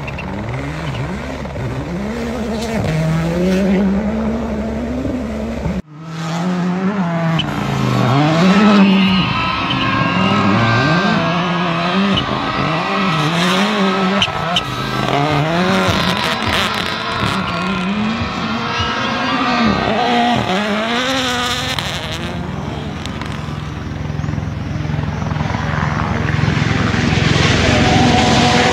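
Rally cars at full speed on gravel stages: turbocharged four-cylinder engines revving up and down through quick gear changes. There is an abrupt cut about six seconds in, and from there it is a Toyota GR Yaris Rally1, holding a steadier note near the end.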